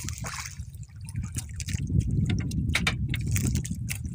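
Seawater splashing and dripping in short irregular bursts, over a steady low rumble.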